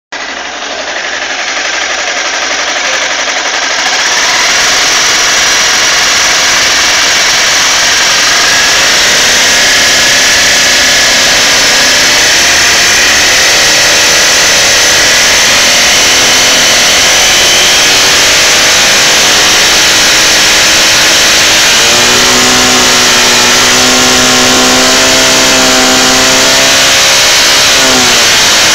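Motorcycle engine running loud and close up while being revved. It holds a steady higher speed for several seconds, then drops and picks up again near the end. The owner suspects a valve shim problem, that is, wrong valve clearance.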